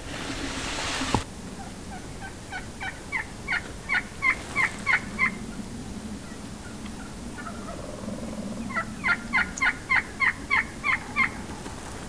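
Wild turkey yelping in two runs of about ten short, evenly spaced notes each, the first growing louder and the second quicker. Before them, a brief rushing hiss ends in a sharp click about a second in.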